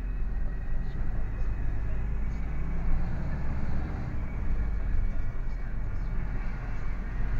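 Lorry engine running and tyre and road noise heard from inside the cab while driving, a steady, mostly low-pitched drone.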